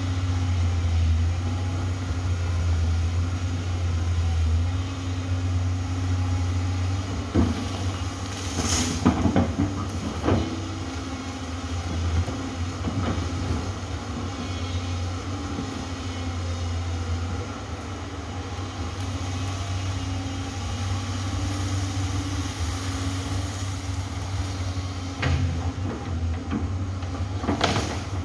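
Amphibious excavator's diesel engine running steadily under work, with a low hum, and a few sharp cracks or knocks about a quarter and a third of the way in and again near the end.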